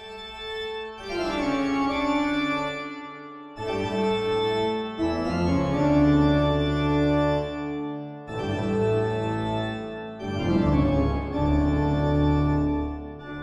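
Organ music: slow, held chords played in phrases, with short breaks between them.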